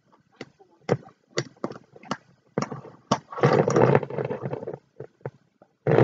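Stacked small glass jars with metal lid bands being handled and twisted: a run of sharp clicks and knocks, then a rough grinding scrape about three seconds in, lasting over a second.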